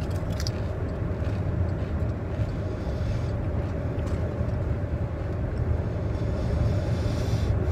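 Steady low road and engine rumble inside a moving car's cabin, with a few short crunches near the start as a ridged potato chip is bitten.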